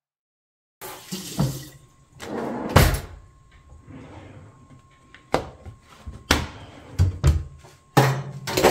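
Kitchen tap run in a few short spells at the sink, with several sharp knocks of kitchenware being handled in between.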